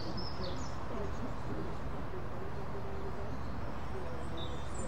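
Outdoor ambience: a steady low rumble with a few birds chirping near the start and again near the end, and faint distant voices.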